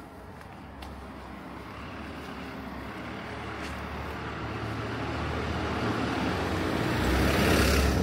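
A motor vehicle approaches along the street, its engine hum and tyre noise growing steadily louder until it passes close by near the end.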